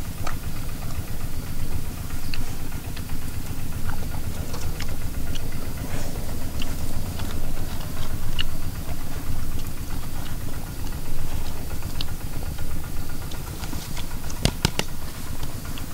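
Puppies chewing and licking food, small wet clicks scattered through, with a few sharper clicks near the end, over a steady low rumble.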